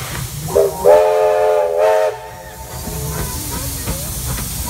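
Steam whistle of NSW 30 class tank locomotive 3016: a brief toot about half a second in, then a single steady blast of about a second that cuts off sharply. Steam hiss and the low rumble of the approaching locomotive run underneath.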